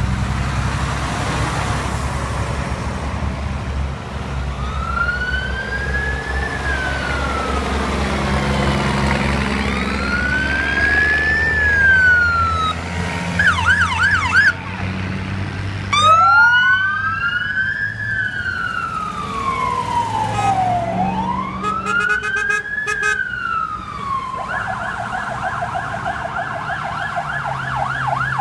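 Emergency vehicle sirens: a wail sweeping slowly up and down several times, with a short burst of fast yelp about halfway through, switching to a steady rapid yelp near the end. The low engine rumble of heavy trucks driving past runs underneath and is strongest at the start.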